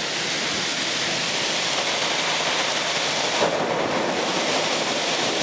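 Torrential rain pouring down in a steady, even hiss during a severe thunderstorm.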